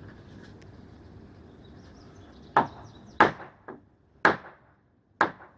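A hammer striking wood: five sharp blows, a little under a second apart, starting about two and a half seconds in, the fourth one weaker.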